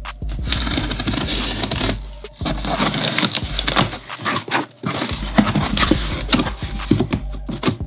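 Hands opening a taped cardboard shipping box: a knife slitting the packing tape, then the cardboard flaps scraping and crackling as they are pulled open.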